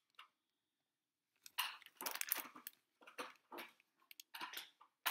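Clear plastic packaging crinkling and rustling as it is handled, in irregular crackly bursts that begin about a second and a half in.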